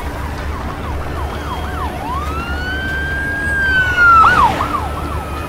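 Siren sounding in rising and falling sweeps, some quick and one long and slow. A louder burst of noise comes about four seconds in.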